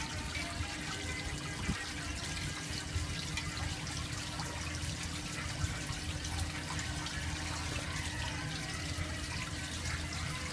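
A jet of water splashing steadily into a shallow pool, a continuous splashing and trickling, with a steady low hum underneath.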